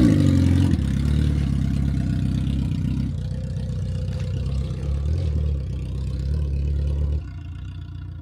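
Motorcycle engine running at low revs. The revs fall away at the start, then it runs steadily with small rises and dips, and it becomes much quieter about seven seconds in.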